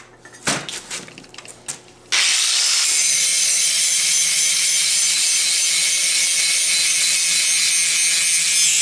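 Angle grinder grinding weld beads flat on steel jig pieces. A few clicks and knocks of handling come first, then about two seconds in the disc bites in with a sudden, loud, steady grinding hiss that holds without a break.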